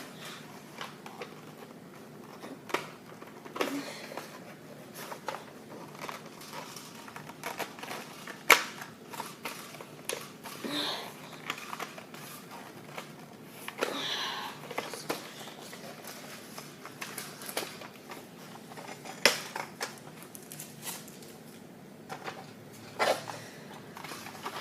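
Irregular plastic clicks, knocks and rattles from a Nerf Rival Apollo XV-700 toy blaster being handled while someone tries to free its stuck magazine, with a few sharper clacks.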